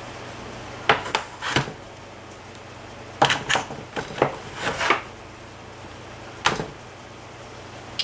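Plastic clicks and knocks from handling a Chromebook whose hinges have both broken: a few about a second in, a quick cluster from about three to five seconds, and one more later. A faint steady hum runs underneath.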